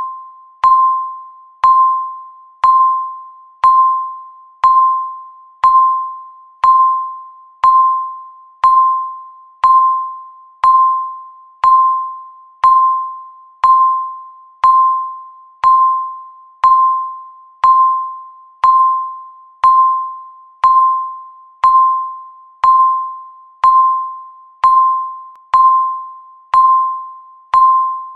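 Countdown timer beep: a single clear electronic tone, struck once a second and dying away quickly, ticking off each second of the countdown.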